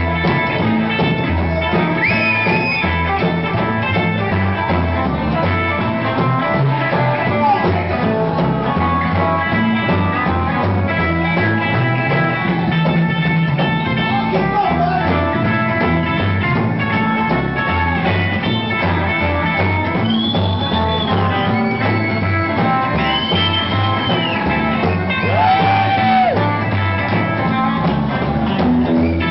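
Live rock 'n' roll band music: upright bass, acoustic guitar and drums playing a fast number, with a few long held high notes in the second half.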